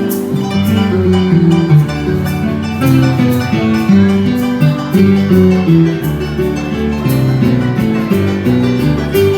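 Paraguayan folk music played live on plucked string instruments: a quick melody of separate plucked notes over a lower accompaniment.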